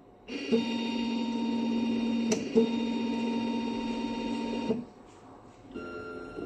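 Graphite furnace autosampler's stepper motors whining steadily as the sampler arm moves, with a sharp click and a short stop about two and a half seconds in. The motor stops about three seconds later, and a quieter whine at a different pitch starts near the end.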